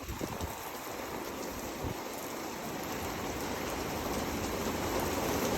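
Heavy thunderstorm rain and wind, a steady hiss that slowly grows louder, with a faint low roar beneath it.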